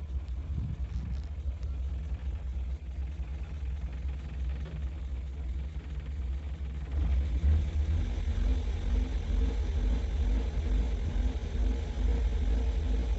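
A Ford car's engine running at idle, heard from inside the cabin as a steady low rumble that gets louder about seven seconds in.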